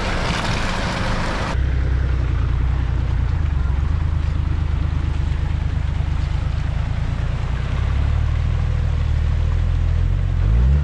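A four-wheel-drive vehicle's engine running steadily at low revs, with the revs rising briefly near the end. For the first second and a half a louder rushing noise lies over it and cuts off suddenly.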